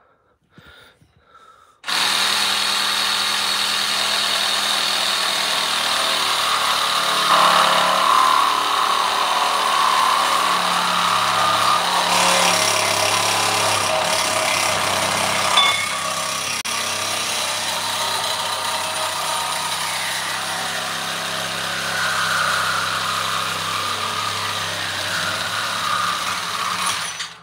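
Cordless compact reciprocating saw cutting through a steel bar. It starts about two seconds in, runs steadily under load, and stops just before the end as the cut is finished.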